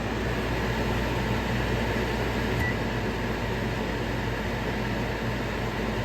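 Vent fan of a GE Spacemaker over-the-range microwave running steadily with a low hum, with a short beep from the control panel about two and a half seconds in. The fan cuts off at the end.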